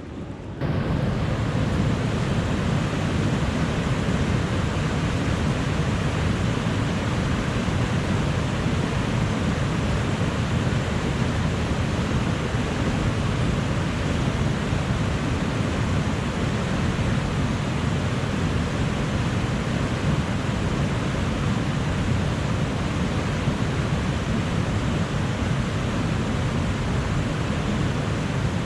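Steady rush of fast-moving river water, rapids or a falls, a loud unbroken roar with no rhythm, starting abruptly about half a second in.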